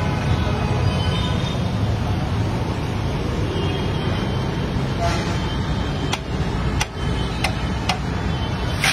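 Banana slices frying in a large kadai of hot oil with a steady hiss, and a metal slotted ladle clicking against the pan a few times in the second half, over a steady rumble of road traffic.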